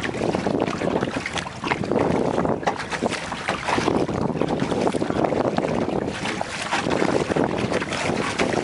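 Wind buffeting the microphone of a camera on a kayak's bow, with water splashing against the kayak and onto the camera.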